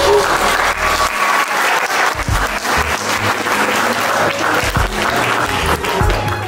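A crowd of wedding guests applauding the newly married couple, dense continuous clapping.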